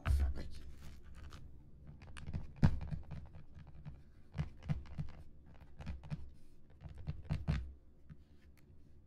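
Fingertips tapping on the front of a cardboard herb seed-kit box: irregular soft taps with a few sharper knocks, the loudest about a third of the way in. The taps stop about a second before the end.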